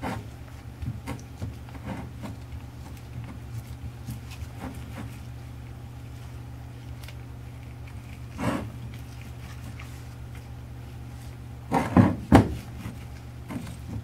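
Gloved hands working wet furnace mortar over a wire-wrapped iron barrel on a wooden desk: faint rubbing and small clicks over a steady low hum, with a few louder knocks about eight and twelve seconds in.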